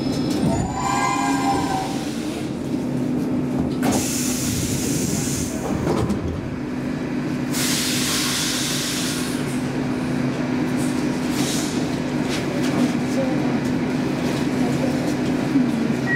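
Stockholm Metro C15 train coming to a stop at a station platform: a short whine as it halts about a second in, then a steady low hum broken by two hisses of air, each a couple of seconds long.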